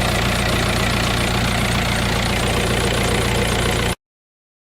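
Volkswagen Passat engine idling steadily while the alternator charges the battery at about 14 volts. The sound cuts off abruptly about four seconds in.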